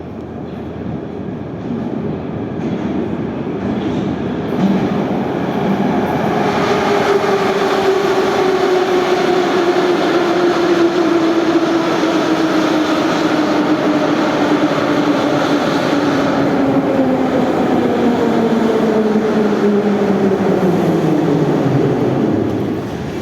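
Metro train of type 81-717/714 pulling into a station. Its rumble builds over the first several seconds as it runs in, then a whine falls steadily in pitch as the train brakes. The sound dies down just before the end as it comes to a stop.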